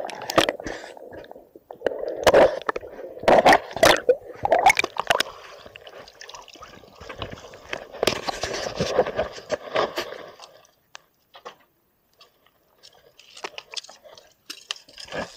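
Sea water sloshing and gurgling close to the microphone, with several loud knocks in the first five seconds. The water sound stops about ten seconds in, leaving only faint clicks.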